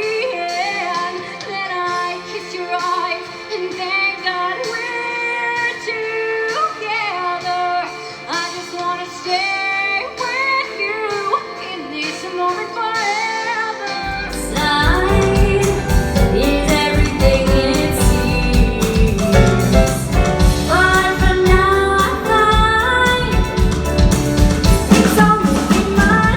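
A woman singing a pop song over backing music. About fourteen seconds in, the arrangement fills out with a heavy bass and a steady beat.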